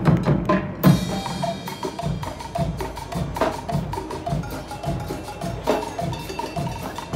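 Student marching band playing: drums keep a fast, steady beat with sharp stick clicks, with a crash about a second in and short pitched notes over the drums.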